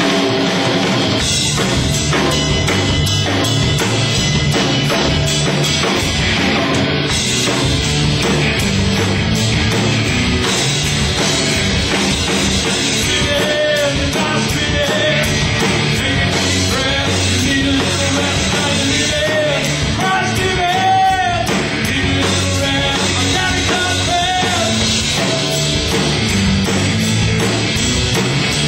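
Live rock band playing: electric guitars through Marshall amplifiers, bass and a drum kit, with a singing voice coming in for a stretch in the middle.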